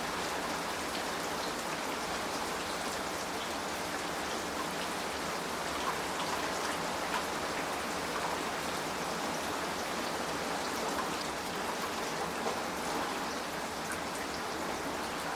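Steady rain falling on the clay-tiled roof of a traditional Korean hanok: an even hiss with scattered individual drops ticking through it.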